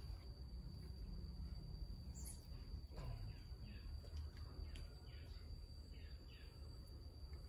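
Outdoor ambience: a steady high insect tone and a few faint bird chirps over a low rumble.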